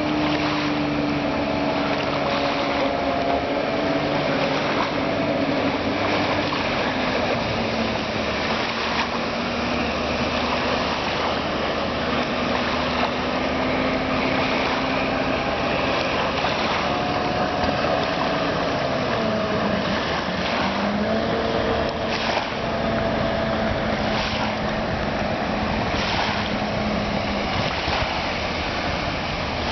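1993 Seaswirl Striper 210's engine running at speed on the water, a steady drone whose pitch drifts and dips briefly about two-thirds of the way through before picking up again, over a steady hiss of wind and water.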